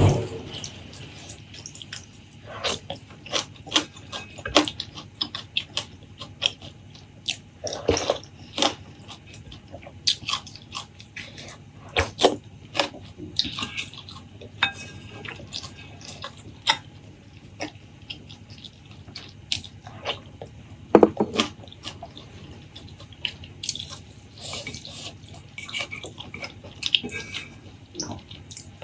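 Close-miked eating sounds: wet chewing and lip-smacking in irregular sharp clicks, with twice a louder, longer wet mouth noise.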